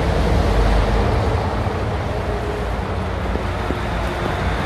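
Steady rain falling on a plastic tarpaulin canopy, an even hiss with a low rumble underneath.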